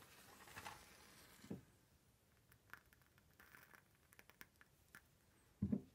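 Near silence: room tone with a few faint clicks and a soft knock about a second and a half in.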